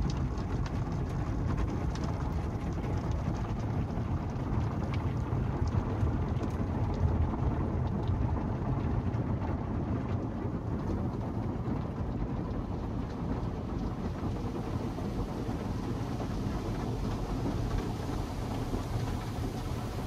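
Automatic car wash heard from inside the car's cabin: water and soap spray drumming steadily on the windshield and body, over a steady low rumble.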